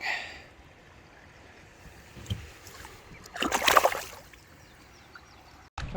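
A brief splash of water at a kayak, about three and a half seconds in, over faint river background.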